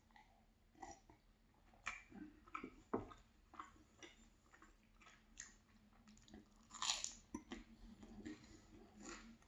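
Close-miked chewing of a flaky pastry: irregular crunchy crackles and wet mouth clicks, with the loudest crunch about seven seconds in.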